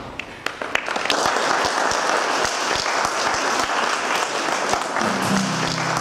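Audience applauding: a few scattered claps grow into full, steady applause about a second in. Near the end, music starts up under it.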